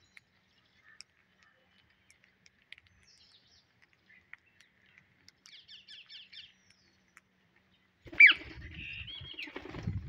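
Rose-ringed parakeets: faint scattered chirps, then a quick run of short repeated chirrups about five seconds in. About eight seconds in comes a loud, falling squawk, followed by more chattering calls and a flurry of wingbeats as the flock takes off.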